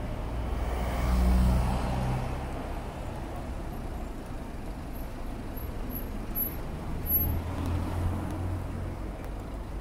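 Road traffic on a town street: a vehicle's engine passes, loudest about a second in, then fades. Another low engine hum comes up near the end.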